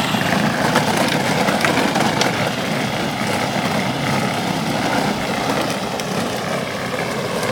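Kids' battery-powered ride-on quad driving: a steady whir from its electric drive motors and gearboxes, mixed with its plastic wheels rolling on wet pavement.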